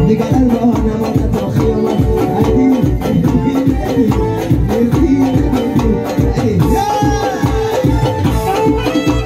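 Live amplified Khurosoni-style Tajik folk music: a male singer singing into a microphone over electronic keyboard accompaniment with a steady, even beat, played through PA speakers.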